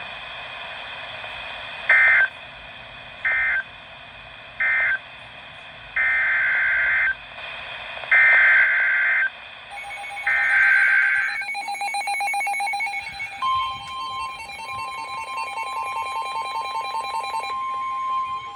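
NOAA Weather Radio Emergency Alert System signalling. Three short buzzing bursts of digital data close the warning, then three longer data bursts open the next one. About two seconds after the last burst, the steady 1050 Hz weather radio alert tone starts, with a pulsing beep alongside it from about ten seconds in.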